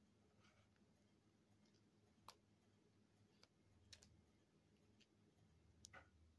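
Near silence broken by a handful of faint, sharp clicks, two close together near the end: plastic blister-pack packaging being handled as a microSD card is picked out of it.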